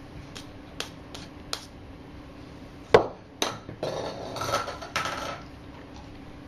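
Hard toys knocking and clattering: a few light clicks, then a sharp knock about three seconds in, followed by a couple of seconds of rattling and clattering.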